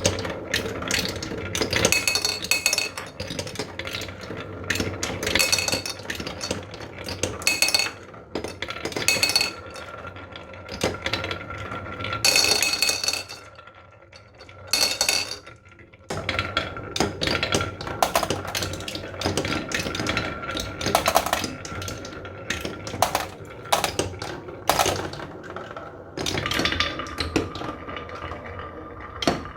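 Marbles rolling and clacking down a marble run track: a rapid stream of clicks and knocks over a rolling rumble, with short ringing tones, easing off briefly about halfway through.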